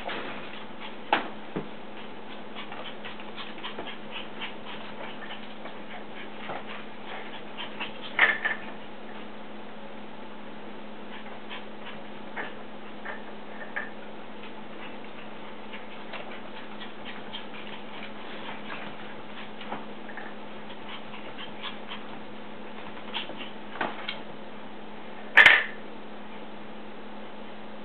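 Havana Silk Dog puppies playing on a tile floor: their claws tick and scrabble on the tiles in many small irregular clicks, with a few faint brief whines. A single short, loud puppy yip comes near the end.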